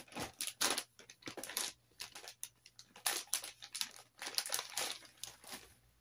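Rummaging through makeup things for a makeup brush: an irregular run of rustling and light clattering with short pauses, which stops shortly before the end.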